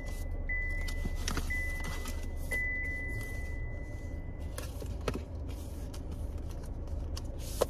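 Cardboard rustling and light taps as a white Apple Watch box is slid out of its outer packaging, inside a car cabin with a steady low hum. A high electronic warning chime, like a car's, pings about once a second, then stops a little past halfway.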